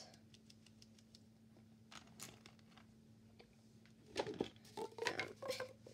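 Plastic fidget toys being handled: a few faint clicks, then a burst of crinkly crackling and clicking about four seconds in.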